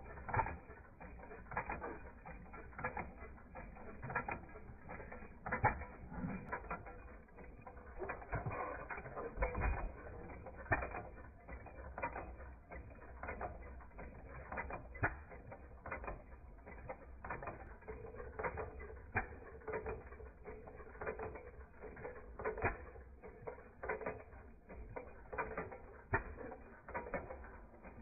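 Two scale-model Domestic stovepipe gas engines running together: a busy, uneven stream of mechanical clicks and taps with an occasional low thud.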